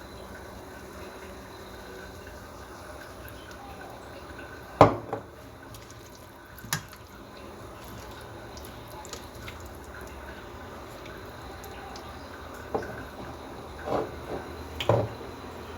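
Kitchen work: a steady faint hiss with several sharp knocks and clatters, the loudest about five seconds in and a cluster near the end.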